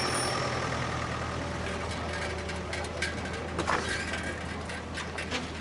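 Vehicle engine idling with a steady low hum, with scattered light knocks and clicks from about two seconds in.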